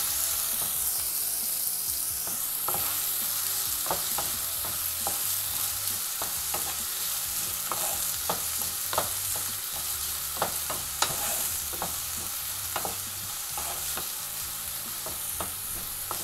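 Chopped onions sizzling in hot oil in a nonstick pan as a wooden spatula stirs them, with a steady hiss and scattered sharp clicks every second or so.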